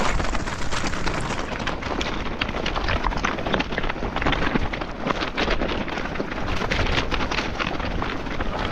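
Mountain bike ridden fast down a rough trail: a constant, irregular clatter of tyres and bike hitting the ground, with a steady low rumble of wind on the microphone.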